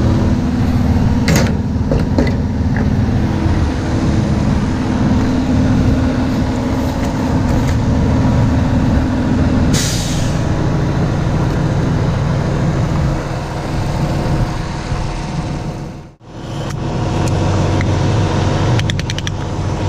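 Freightliner Cascadia semi truck's diesel engine running steadily, with a short hiss of air brakes releasing about halfway through.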